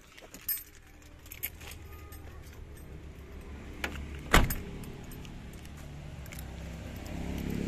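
Light clicks and rattles as someone gets out of a 2003 Toyota Kijang LGX, then one loud thump about four seconds in as its car door is shut.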